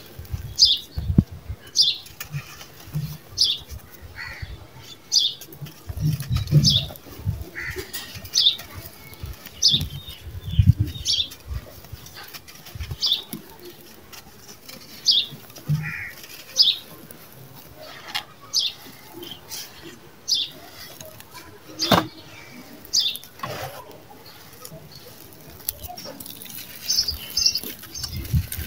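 Dry, gritty sand-cement lumps crushed and crumbled by hand, crunching and trickling apart, with soft thumps as chunks are handled. A short high chirp repeats about once a second behind it.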